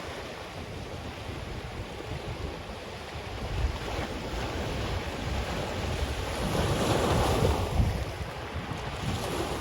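Ocean waves breaking and washing up a black sand beach, with wind buffeting the microphone as a low rumble. A wave surges louder about two-thirds of the way through, then falls back.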